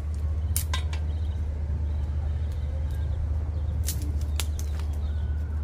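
Outdoor wood-fire cooking: a handful of sharp clicks and taps, two close together about four seconds in, over a steady low rumble.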